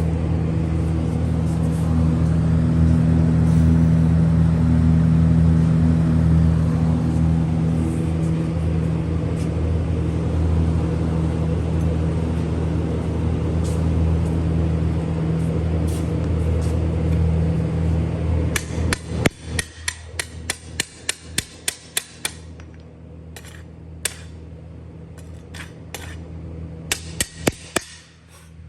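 Miller Syncrowave 350 welding power source humming under load while stick welding on DC at about 50 amps, with the crackle of the arc. About 18 seconds in the welding stops and a hammer knocks slag off the bead in a fast run of sharp taps, about four a second, with a few more taps near the end.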